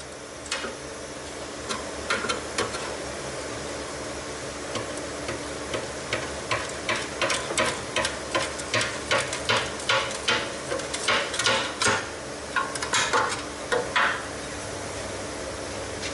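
A run of sharp metallic taps and clicks from a hand tool working on sheet metal, a few scattered at first, then about two or three a second for several seconds before stopping, over a steady hum.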